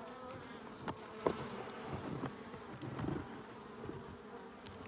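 Honeybees buzzing around an opened hive during a frame inspection: a steady hum, with a few faint clicks.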